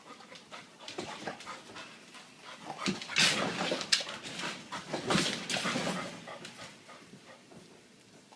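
A dog panting, with louder noisy bursts about three and five seconds in.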